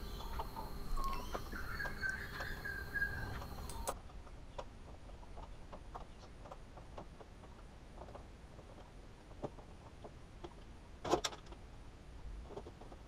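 Faint handling noises of a plastic motorcycle lower fairing panel being worked free by hand: a thin squeak in the first few seconds, then scattered light clicks, with a sharper click near the end.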